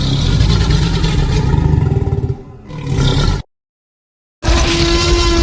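Dinosaur roar sound effect: a loud, deep, rough roar that dips briefly and swells again before cutting off suddenly. After about a second of silence, a different sound with a steady held tone starts near the end.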